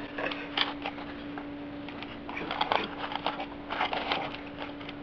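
Over-ear headphones being handled, making irregular clicks and rustles as the headband is worked, over a steady hum.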